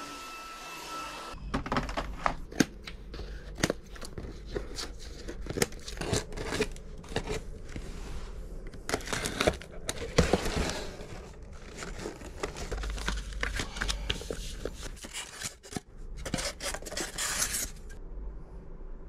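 Packaging being handled: crinkling, tearing and scraping with many light knocks and clicks, after a second of steady background noise with a faint tone. The handling stops suddenly near the end.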